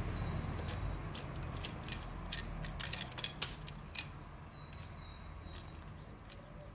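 Ratchet with a Torx bit clicking in short irregular runs while the bolts of a motorcycle's front sprocket cover are undone.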